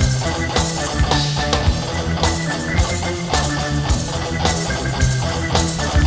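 Rock band playing live: electric guitar and bass over a drum kit keeping a steady beat, in an instrumental passage without vocals.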